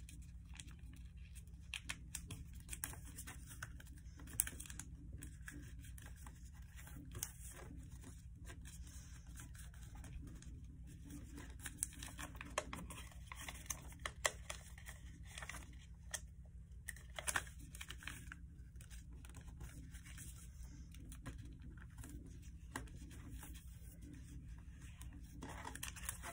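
Faint rustling and crinkling of a sheet of paper as hands fold it and press the creases flat into a paper airplane. The sound comes as short, irregular scrapes and crackles.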